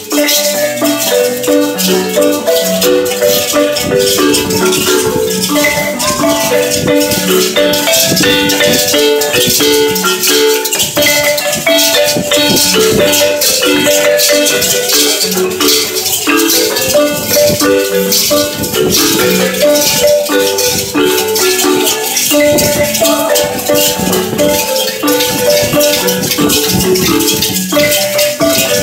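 Marimba playing a running dance tune, with handheld rattles shaking along steadily throughout.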